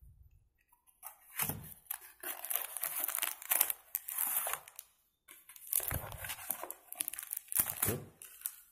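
Cardboard mailer being torn open and a T-shirt in a plastic polybag pulled out: tearing, rustling and crinkling in bursts, with a short pause about halfway.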